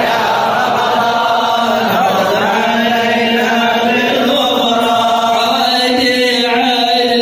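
Men's voices chanting an Arabic qasidah, a devotional hymn bidding farewell to Ramadan, in long held notes that slowly move in pitch.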